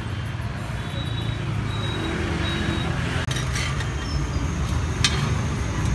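Steady road-traffic rumble, with a few sharp clicks in the second half.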